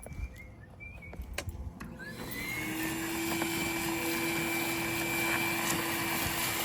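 A motor starts, spinning up smoothly over about half a second about two seconds in, then runs steadily with a hum and a high whine over a hiss of rushing air.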